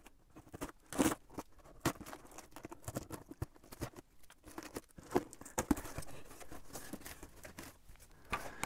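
Packing tape being cut and torn off a cardboard box and the flaps pulled open: irregular scrapes, taps and rips against the cardboard, with a sharper one about a second in.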